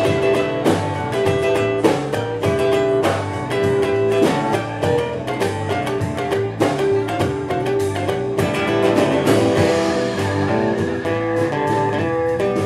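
Live band playing an instrumental passage without vocals: acoustic guitar, bass guitar and drum kit, with steady drum hits under the guitar lines.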